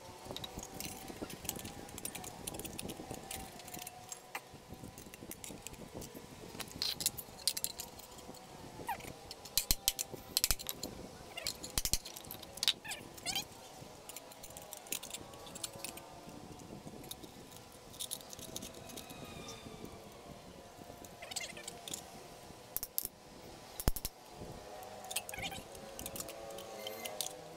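Small metal parts clinking and tapping against a rice cooker's aluminium base plate as it is handled and a screw in it is worked with a small driver: scattered sharp clicks and jingles, irregular throughout.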